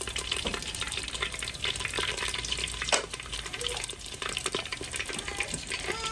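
Pork frying in hot oil in a clay pot: a steady sizzle full of small crackles and pops, with one sharper pop about three seconds in.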